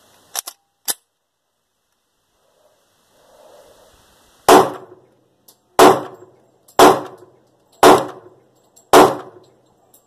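A few light clicks of the pistol being handled, then five gunshots about a second apart from a compact .40-calibre semi-automatic pistol (Springfield Armory XD40), each with a short echoing tail, emptying the magazine.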